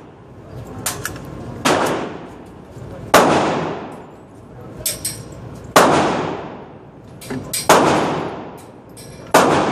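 Gunshots echoing in an indoor shooting range: five sharp cracks about one and a half to two and a half seconds apart, each trailing off in a long echo, with fainter clicks between them.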